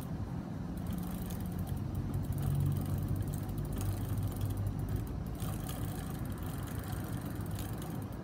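Rockrider mountain bike's chain running over the chainring and rear sprockets as the crank is turned by hand, with a rag wiping the freshly degreased chain: a steady mechanical whir with light ticking.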